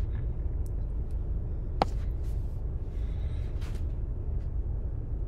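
Steady low rumble of a car heard from inside the cabin, with a few faint clicks and one sharper click about two seconds in.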